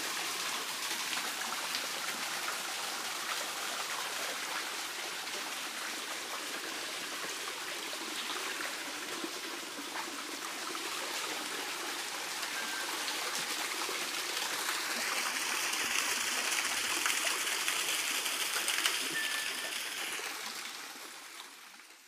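A small rocky forest stream trickling and splashing as it spills over stones, a steady rushing hiss. It grows louder and brighter for a few seconds near the end, then fades out.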